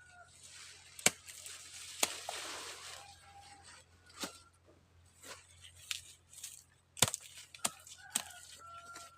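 Corn ears being snapped off the stalks: about six sharp snaps spread irregularly, with a stretch of rustling and tearing of husk and leaves about two seconds in.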